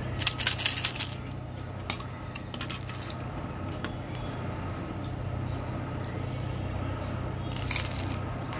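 Small candy-coated chocolate beans clattering out of a plastic candy tube into a palm in a quick run of clicks, then a few scattered clicks, and another clatter near the end as they are handled into a second tube. A steady low hum runs underneath.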